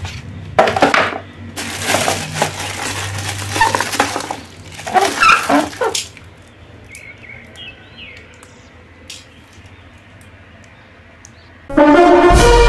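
Thin plastic masks being handled among clear plastic wrappers: crinkling and crackling cellophane with light hollow plastic knocks, which dies down to a few faint clicks about six seconds in. Music with a steady melody starts near the end.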